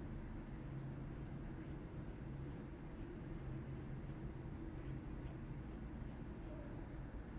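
Polychromos coloured pencil scratching on kraft card in short flicking strokes, about two a second, laying in hair-like strands, over a steady low hum.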